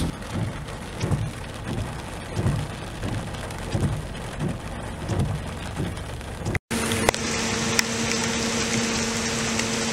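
Steady rain, with repeated low swells of noise every half second or so. About two-thirds of the way through the sound cuts out briefly, then the rain comes back with a steady low hum under it.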